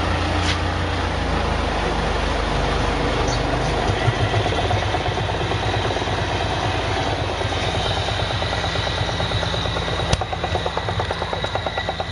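Wood-gas generator's diesel engine, running on wood gas with a little diesel, chugging steadily with an even low pulsing. There is one sharp click about ten seconds in.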